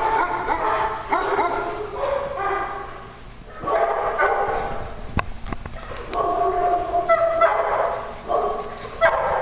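Dogs barking in repeated bursts, with short lulls about three and five seconds in.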